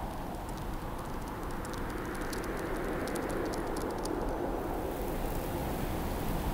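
Wind blowing: a steady rushing noise, with faint scattered high ticks in the middle.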